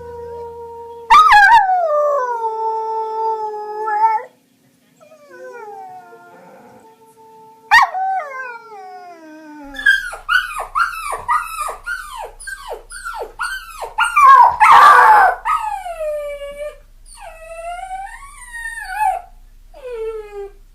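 A dog howling in long calls that fall in pitch, then a quick run of short, high yelping whines, each dropping in pitch, at about two to three a second.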